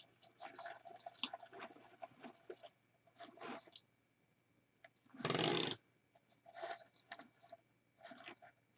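Hands handling and rustling an artificial flocked-evergreen wreath and its ribbon bow: scattered faint crinkles and small clicks, with one louder half-second swish about five seconds in.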